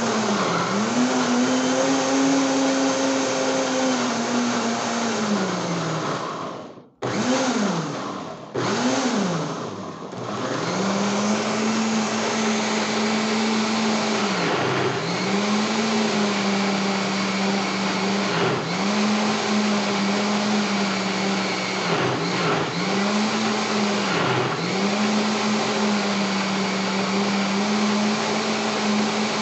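Kitchen blender motor running under load as it blends homemade seasoning, its pitch dipping again and again as the thick mixture catches on the blades. About seven seconds in it is switched off for a moment and pulsed twice, then runs steadily again.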